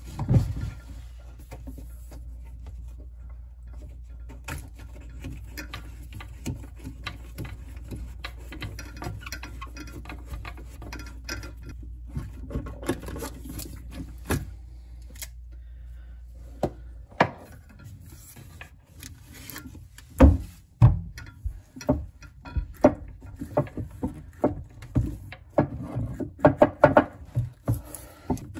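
Hands loosening faucet supply-line nuts and plastic mounting nuts under a bathroom sink: scattered clicks, knocks and scrapes of metal and plastic, coming thick and fast in the last eight seconds or so.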